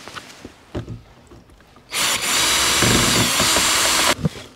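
Makita cordless drill running for about two seconds, driving a screw to fasten a solar charge controller to the boat's console. A few light knocks come just before it, and it cuts off sharply.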